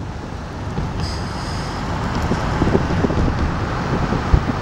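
Wind rushing and buffeting over the microphone with the road noise of a moving car beneath it, growing a little louder over the first couple of seconds.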